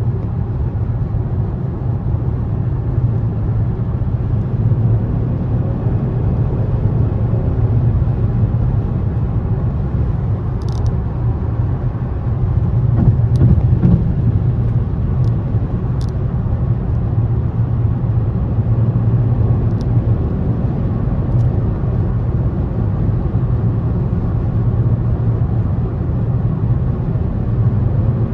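Nissan Rogue Sport's 2.0-litre MR20DD four-cylinder running steadily under way, with a continuous low rumble of engine and road noise that swells slightly about halfway through. The engine is running smoothly on a new VIN J relay.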